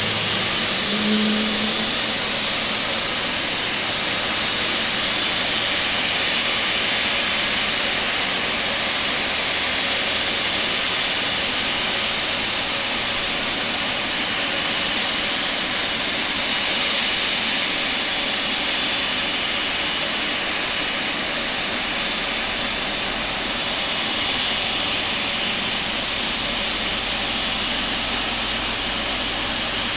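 Jet engine noise from a Boeing 777 freighter being pushed back: a steady, loud hissing roar with a faint high whine, holding level throughout.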